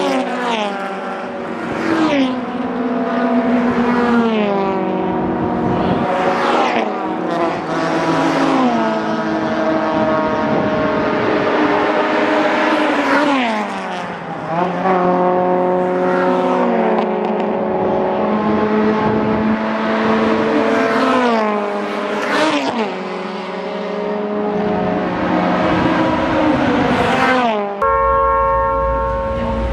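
Several Honda race cars' four-cylinder engines running at high revs, one after another. Each note climbs through the gears, then drops steeply as the car goes by and slows. Near the end it changes abruptly to a steadier, lower engine note over a low rumble.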